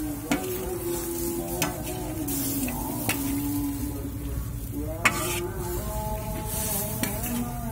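A metal spatula stirring food in a large steel wok, scraping the pan with four sharp clanks, over the sizzle of the cooking stew.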